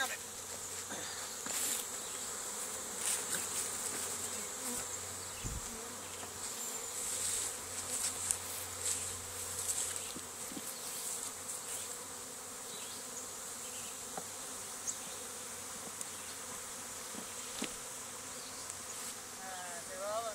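Honeybee swarm buzzing steadily, the bees flying about after being shaken into a hive body, with a few short knocks scattered through.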